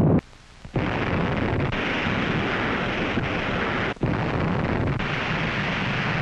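Explosion sound of a nuclear bomb blast from archival film. A loud blast cuts off just after the start. About half a second later a steady, heavy rumble sets in and lasts, broken for an instant about four seconds in.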